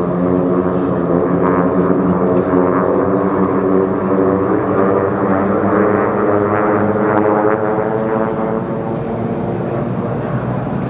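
North American AT-6 Texan race planes at full power, their Pratt & Whitney R-1340 nine-cylinder radial engines and propellers making a loud, steady multi-toned drone that shifts slightly in pitch as the planes move along the course.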